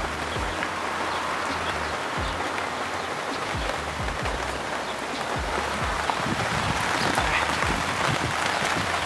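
Steady rain falling, an even hiss with faint low thumps underneath.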